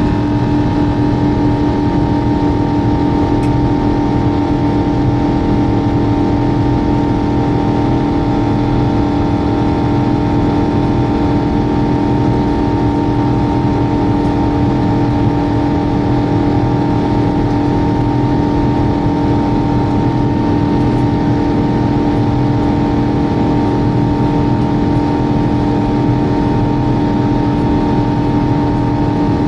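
Jet airliner's turbofan engines running steadily: a loud, even rumble with a steady hum of several pitched tones that does not rise or fall.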